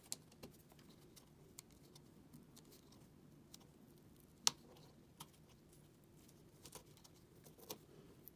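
Scattered small clicks and short scratches of a hand tool working cured body filler on wooden door trim, with one sharper click about four and a half seconds in.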